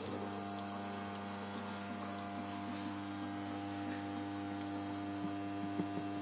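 A steady electrical appliance hum, a few held tones, switching on abruptly at the start, with a few faint metallic clicks near the end as a foil coffee capsule is pried open with a small metal tool.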